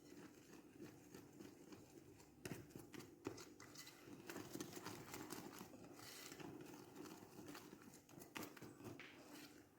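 A utensil stirring thin cake batter in a bowl: soft, irregular clicking and scraping against the bowl.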